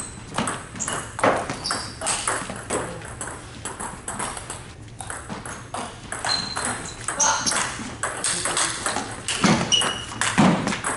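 Table tennis ball clicking back and forth off the rubbers of the bats and the table top during a rally: a quick, irregular run of sharp knocks, with a few short high squeaks between them.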